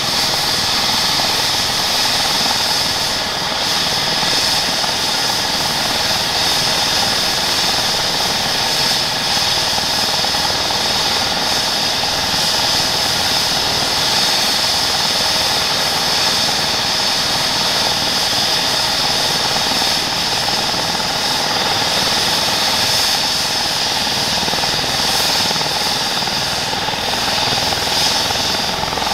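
Airbus H135 P3 helicopter running on the ground with its main rotor turning: the steady, high whine of its twin Pratt & Whitney PW206B3 turboshaft engines over the rotor's whir.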